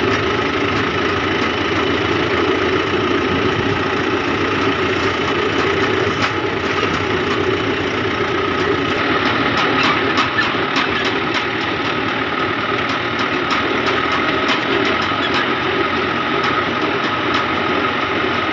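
Fiat 640 tractor's diesel engine running steadily while driving, heard from the driver's seat, with scattered clicks and rattles through the middle.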